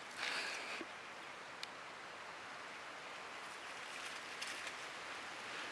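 Leaves and stems rustling briefly near the start as sprigs of climbing brinjal (thuthuvalai) are picked by hand, then a steady outdoor hiss with a couple of faint clicks.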